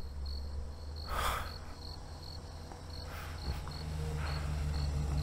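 Crickets chirping in a regular high pulse a few times a second, over a low hum that grows steadily louder, with a low note entering near the end. A short breathy rush about a second in.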